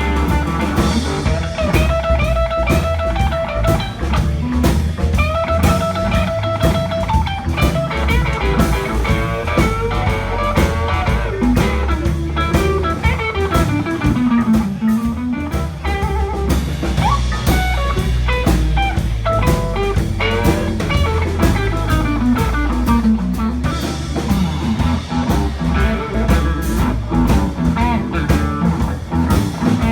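A live blues band playing an instrumental break. A lead electric guitar plays bent, held notes over bass and a drum kit.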